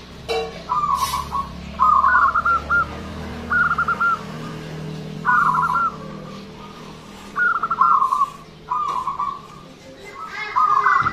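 Zebra dove (perkutut) cooing: a run of short, rhythmic coo phrases, one every second or two, coming faster near the end. A single short click sounds just after the start.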